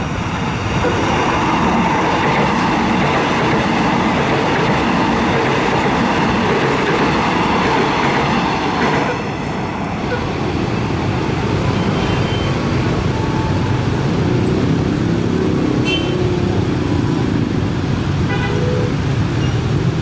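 Electric multiple-unit train passing close, a loud steady rush of wheel and motor noise for about nine seconds. After that, massed motorcycle engines running and revving at the level crossing, with a few short horn toots.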